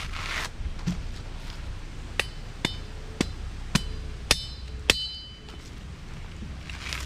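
Six sharp metal strikes about half a second apart, the later ones leaving a brief ringing tone, like a metal blade or tool hitting something hard.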